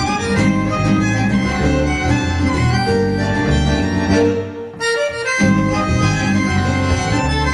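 A folk quartet playing a lively tune on accordion, violin, acoustic guitar and bass guitar, the accordion most prominent. About halfway through the bass and low notes drop out for about a second, then the full band comes back in.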